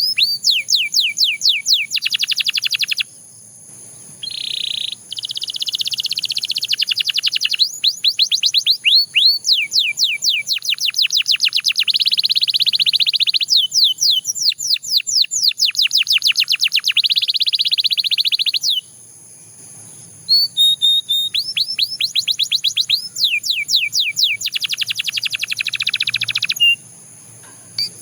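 Domestic canary singing: phrases of rapid, repeated, downward-sliding whistled notes, several a second, alternating with fast buzzy rolls. The song breaks off briefly about three seconds in and again about nineteen seconds in, over a steady faint high hiss.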